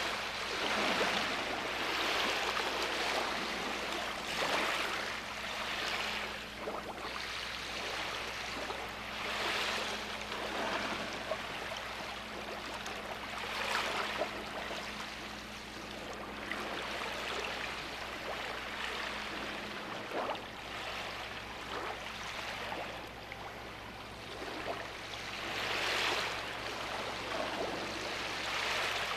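Sea waves washing onto a shore, a steady rush of surf that swells and fades every few seconds.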